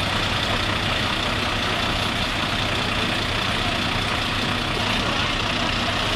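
A heavy vehicle's engine idling steadily: a constant low hum under an even rushing noise, with no change in pace.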